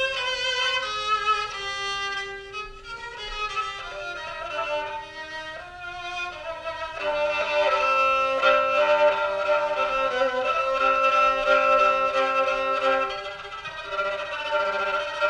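Solo kamancheh, a bowed spike fiddle, playing a slow melody. It starts with a softer run of shorter notes, then swells into louder long-held notes about halfway through.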